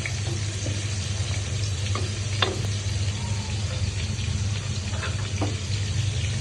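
Food sizzling in a cooking pan as it is stirred, with a few light knocks of the utensil against the pan and a steady low hum underneath.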